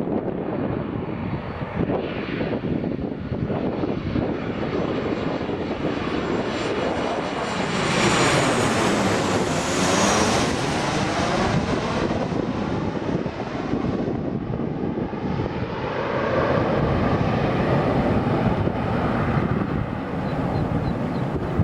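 Boeing 737-800's CFM56-7B jet engines on landing approach, passing by. The roar swells to its loudest about halfway through, with a sweeping, phasing whine as the aircraft goes past, then eases off.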